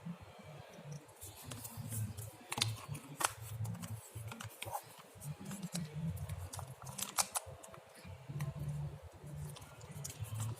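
A stirrer clicking and scraping against a container while mixing glue for slime, with irregular sharp ticks; the mixture is starting to clump.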